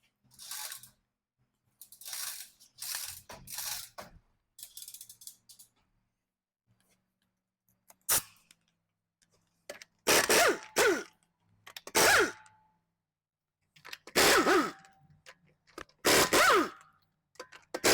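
A power tool run in repeated short bursts. Quieter bursts come in the first few seconds, a sharp click sounds about eight seconds in, and then about five loud bursts of around a second each follow, their pitch sweeping within each burst.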